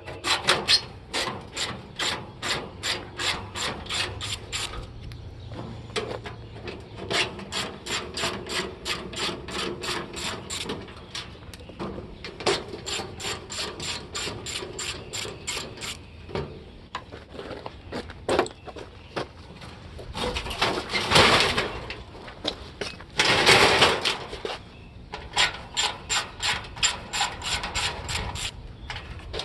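Hand socket ratchet clicking in quick, even runs of about four or five clicks a second as bolts are backed out of a scrap air-conditioning unit, stopping and starting between bolts. About two-thirds of the way through come two louder, longer scraping noises.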